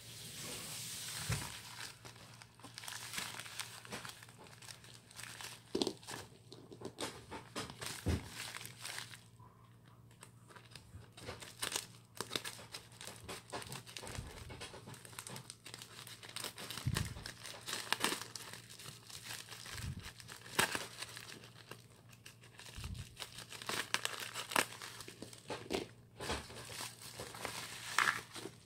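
Plastic courier mailer bag crinkling and rustling in the hands, with irregular crackles and clicks, as it is cut open with scissors and a cardboard box is pulled out of it.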